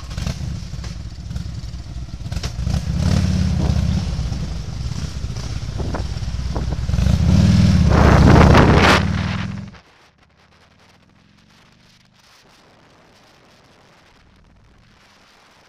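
Cruiser motorcycle engines pulling away and accelerating hard, the revs swelling twice as the bikes go up through the gears and loudest about eight seconds in. About ten seconds in the engine sound cuts off abruptly, leaving a faint steady hiss.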